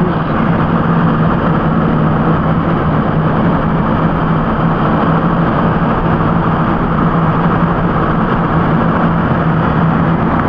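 Steady engine drone and road noise of a moving vehicle, heard from inside the cab: a constant low hum under an even rush of tyre and wind noise.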